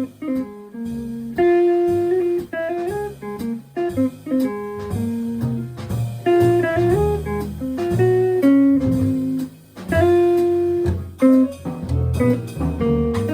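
Jazz quartet playing: a guitar carries a line of single melodic notes over piano, bass and drums.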